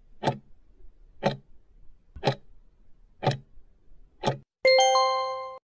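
Countdown-timer sound effect: a clock ticking once a second, five ticks, then a loud ringing bell-like chime lasting about a second that signals the time is up.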